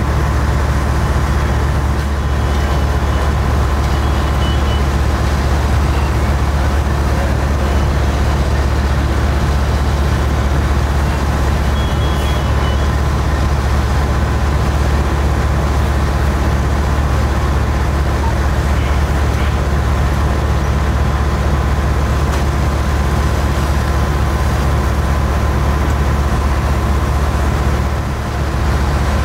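Heavy fire-truck diesel engine running steadily at a constant speed, a loud low drone.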